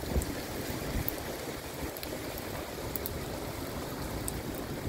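Heavy rain pouring down in a steady hiss, with a couple of low gusts of wind on the microphone in the first second.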